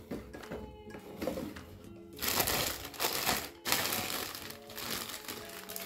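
Clear plastic bag crinkling as a stainless steel kettle is pulled out of it, in two loud rustling stretches around the middle, over background music.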